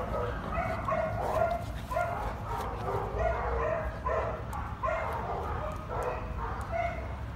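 Dogs barking and yipping, a quick run of short calls about two a second.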